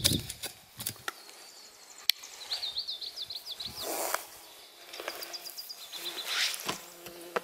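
Small birds singing short trills of quick high chirps, over scattered clicks and rustles of someone moving about. A low steady buzz starts near the end.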